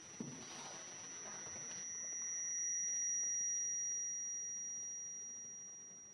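High-pitched audio feedback whistle from a microphone looped through computer and camcorder: a steady pure tone with a fainter lower tone beneath it, swelling up over a couple of seconds and then slowly fading. A soft thump just after the start.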